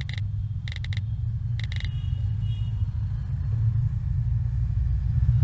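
Three short electronic chirps, like phone message alerts, in the first two seconds, over a low steady rumble that grows a little louder toward the end.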